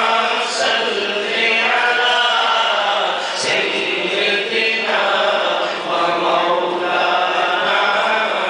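A man chanting a naat, an Urdu devotional poem, in a melodic voice with long held notes, amplified through a microphone.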